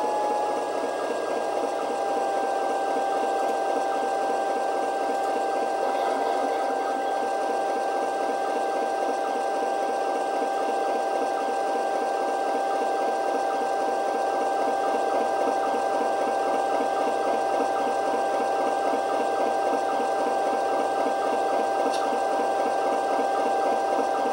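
Model-train sound decoder playing a recorded GE FDL-16 diesel prime mover through a tiny speaker: a steady, fast engine chug with a high turbocharger whine that settles slightly lower in the first second, then holds steady. The sound is thin, with almost no deep bass.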